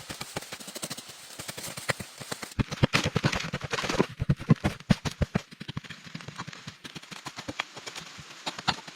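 A rapid, irregular series of sharp taps and knocks, louder and denser for a few seconds in the middle.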